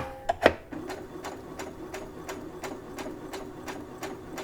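Brother LB5000S computerized sewing and embroidery machine sewing a straight stitch at low speed: a steady motor hum with an even tick about three times a second as the needle cycles.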